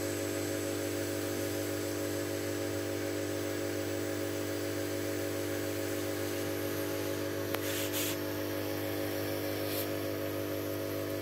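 Laser engraver running a cut with its air assist fed by aquarium air pumps: a steady electrical hum and hiss of the pumps, fan and motors. A couple of short hissing bursts come about two-thirds of the way in.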